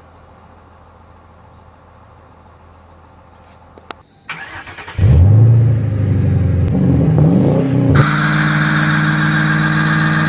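Ford Crown Victoria's 4.6-litre V8 being started: a click about four seconds in, a brief crank, then the engine catches with a short rev and settles into steady running.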